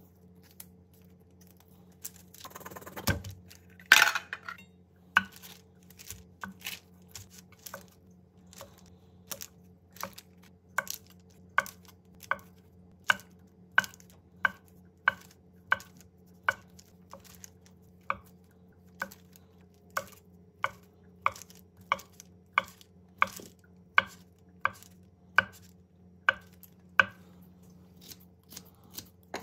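A kitchen knife chopping food on a cutting board, at about two even strokes a second. It opens with a louder clatter and two sharp knocks. A faint steady hum runs underneath.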